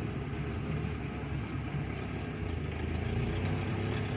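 Vehicle engine and road noise heard from inside the cab while driving, a steady low hum that grows a little stronger about two and a half seconds in.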